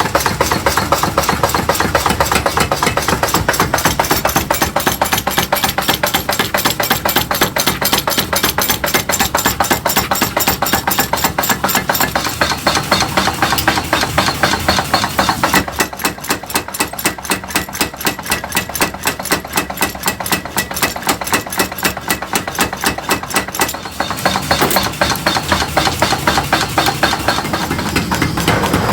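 Rapid, evenly spaced hammer blows on hot steel, several a second, as blacksmith's tongs are forged. The blows are a little lighter for a stretch about halfway through.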